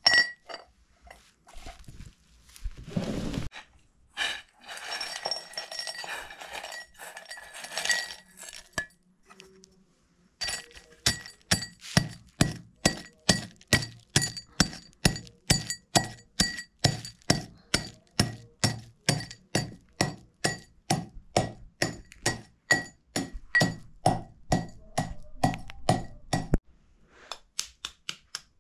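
A few knocks and some rustling handling of kitchen things. Then a long, steady run of ringing clinks, about three a second, of a utensil beating against a bowl as ingredients are mixed by hand, which stops a couple of seconds before the end.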